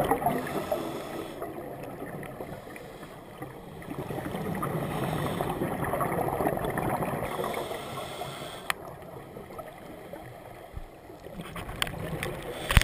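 Underwater sound through a GoPro's waterproof housing: scuba divers' exhaled bubbles gurgling, rising and falling in two slow swells. A few sharp clicks come near the end.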